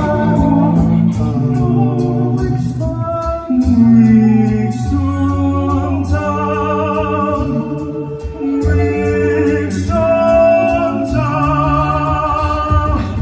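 Male a cappella group singing wordless sustained chords through microphones and a PA, over a deep sung bass line. Vocal percussion ticks along faintly in the high end.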